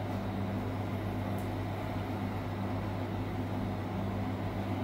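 Steady low electrical hum of commercial kitchen appliances, with a faint tick once.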